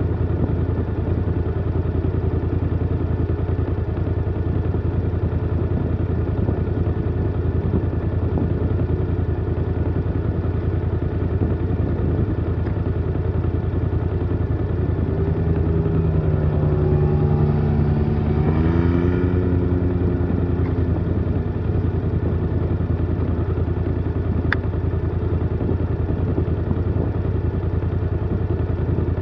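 Engine idling steadily. From about 15 to 21 seconds in, another off-road vehicle's engine passes by, its pitch rising and then fading.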